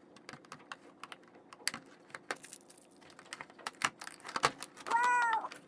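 Irregular clicks, taps and crackles of a toy blaster's cardboard-and-plastic retail packaging being opened by hand. A short high-pitched squeak or hum sounds near the end.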